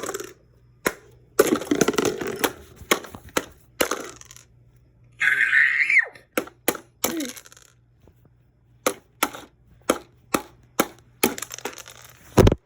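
Plastic LEGO pieces clattering and knocking as a LEGO City Safari set is hit together in play. A dense clatter comes first, then a short hiss, then a run of sharp knocks about two or three a second, ending in one loud knock.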